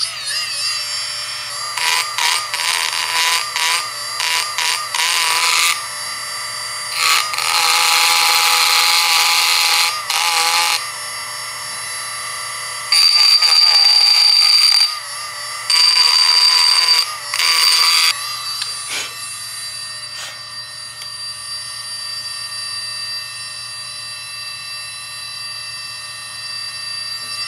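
Dremel rotary tool running at high speed with a steady high-pitched whine, its bit grinding into an aluminium piston in several harsh stretches over the first 18 seconds or so, then whining on without cutting. The grinding takes material off the piston to bring its weight down for balancing.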